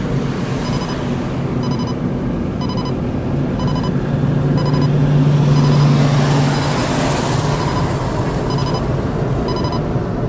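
Road noise of a moving car heard from inside the cabin, with a short electronic tick repeating about once a second like a turn-signal indicator. A low steady hum swells louder from about four to seven seconds in.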